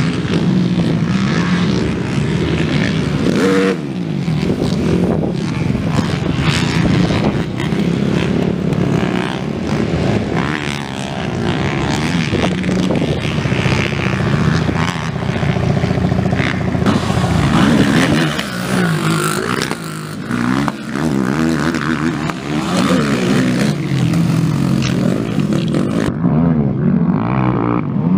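Several racing ATV engines revving, their pitch rising and falling as the quads accelerate and back off around a dirt motocross track.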